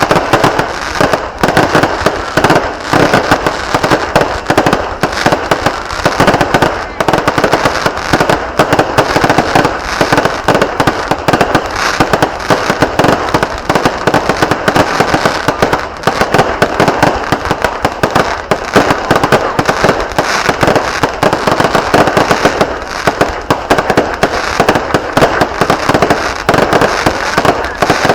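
Fireworks going off in a dense, unbroken barrage: many sharp cracks and bangs a second, loud throughout.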